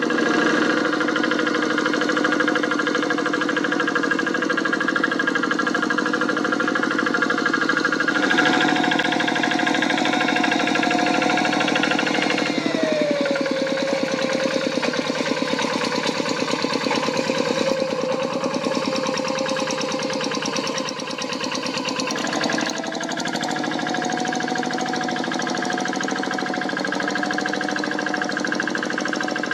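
Kubota single-cylinder diesel engine of a two-wheel hand tractor running under load while ploughing. Its pitch shifts a few times as the load changes, with a falling glide about halfway through.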